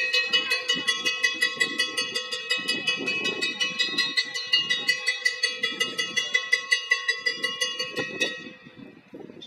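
A metal bell rung rapidly and evenly, about five strikes a second with a steady ringing tone, stopping abruptly a little after eight seconds in.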